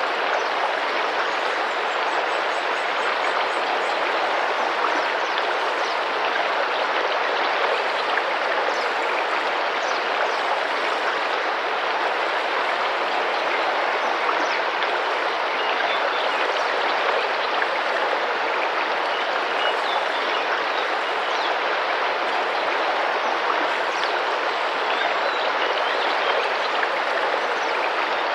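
Tropical rainforest river flowing and splashing steadily, with faint high bird chirps here and there.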